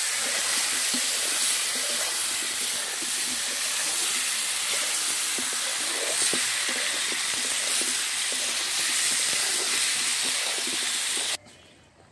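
Potato chunks sizzling in hot oil in a kadai, with a steady hiss and the scrape and knock of a spatula stirring them. The sizzle cuts off suddenly near the end.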